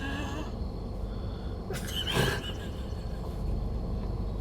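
Steady low road rumble inside a moving car, with a short breathy vocal squeal from one of the passengers about two seconds in.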